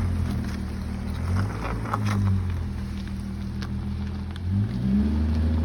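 Audi A7 with an APR Stage 1 tune and the exhaust muffler deleted: the engine note rises and falls with throttle twice, with some crackle during the first rise.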